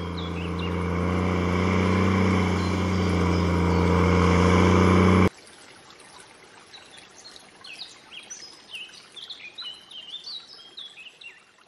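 Steady engine drone of a combine harvester at work, which stops abruptly about five seconds in. After that, small birds chirp in quick repeated short high notes.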